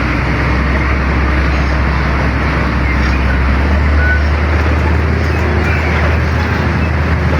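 Steady road noise of a motor vehicle driving along a road: a deep engine-and-tyre rumble under a hiss of traffic, the rumble shifting a little higher in pitch about halfway through.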